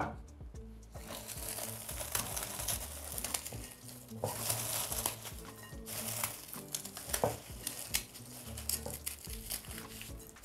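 Plastic cling film crinkling and rustling as it is pulled and wrapped around a cake, with background music underneath.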